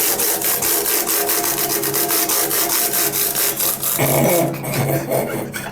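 Rapid back-and-forth scrubbing on a laptop keyboard being cleaned with vodka, about four rasping strokes a second, stopping about four seconds in.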